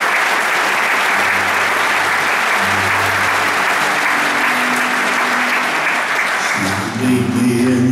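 Audience applauding, with an acoustic guitar playing under it; the applause dies away near the end, leaving the guitar's opening chords in the clear.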